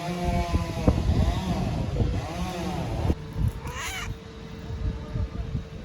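A cat meowing: about three drawn-out meows, each rising and falling in pitch, in the first three seconds, then a short, higher-pitched cry near the four-second mark, over a low rumble.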